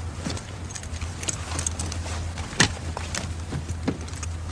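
Soldiers shifting and handling their gear: scattered clicks and knocks, the sharpest about two and a half seconds in, over a steady low hum.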